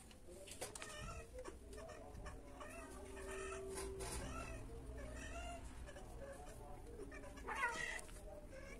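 Domestic cats mating: a string of short, wavering yowls and meows, with a louder cry near the end.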